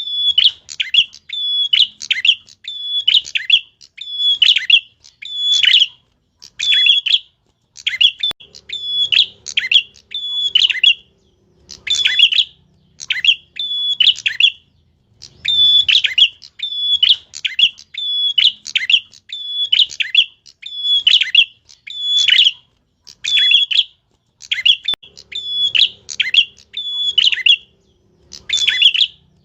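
Small songbird, the kind Indonesian keepers call a 'tilek', calling vigorously ('gacor') with a sharp, piercing voice. Its short chirping calls each sweep downward in pitch and repeat about once a second, in runs with brief pauses.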